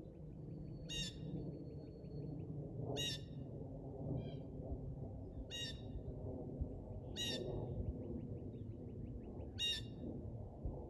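A bird gives five short harsh calls, about two seconds apart, over the steady low rumble of a jet airliner passing overhead.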